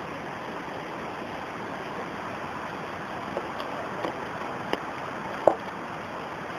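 Shallow rocky stream running steadily, with a few light clicks and taps in the second half.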